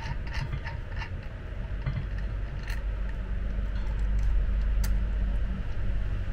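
Electric-scooter hub-motor wheel turning in a bench stand as it is handled: a low rumble that swells a little in the middle, with light clicks in the first second.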